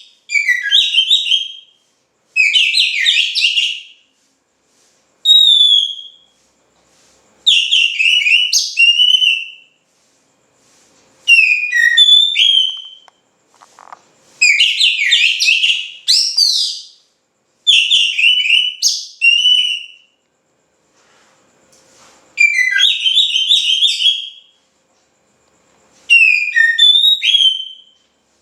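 Oriental magpie-robin (kacer) singing loudly in repeated bursts of rapid, sweeping whistled notes: about nine phrases, each one to three seconds long, with short pauses between.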